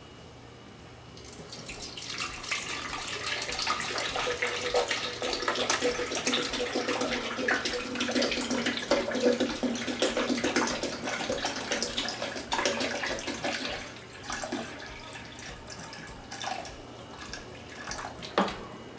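Coconut water poured from a plastic bottle into an empty plastic blender jar, a steady stream splashing as the jar fills. The pour eases off about three-quarters of the way through, ending in a few short splashes.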